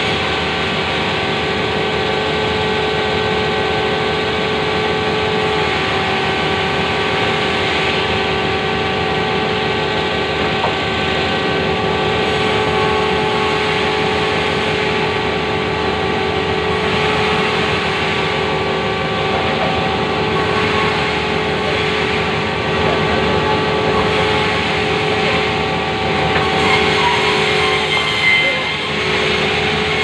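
Sawmill band saw and its electric drive motor running steadily: a continuous machine hum with several held tones.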